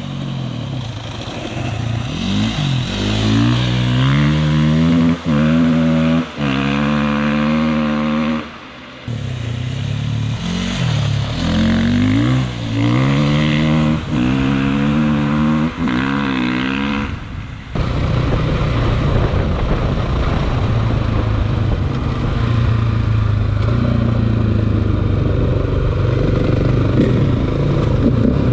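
Single-cylinder four-stroke KTM EXC enduro motorcycle engine revving hard, its pitch climbing and falling again and again with brief throttle cuts between. About two-thirds of the way through it settles into a steadier, rougher running sound.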